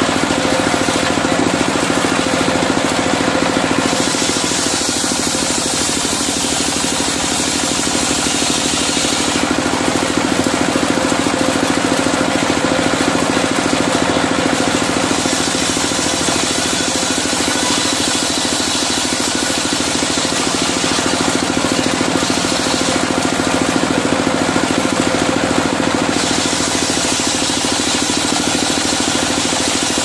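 Single-cylinder diesel engine running steadily, driving a circular sawmill blade; the hiss of the blade cutting medang timber comes in three long stretches as boards are pushed through.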